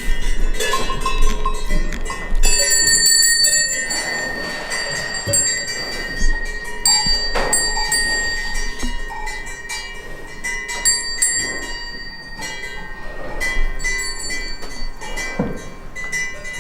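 Cowbells on grazing cattle clanging irregularly, many uneven clanks with a metallic ringing that hangs on between them.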